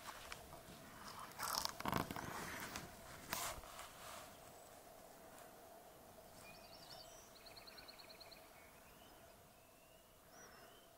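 Footsteps scraping and crunching on rock over the first few seconds. Then quiet songbird song: a fast high trill and short rising whistled notes, repeated. A faint steady tone hums underneath.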